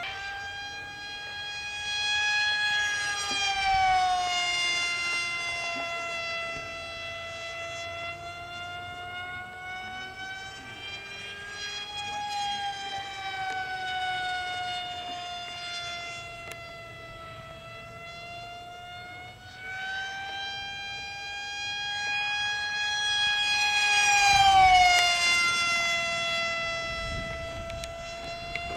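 3D-printed electric canard model airplane in flight: its electric motor and propeller give a steady, high-pitched whine that swells and fades as the plane moves around. Twice it grows loud and the pitch slides down as the plane passes close, about four seconds in and again, loudest, near the end.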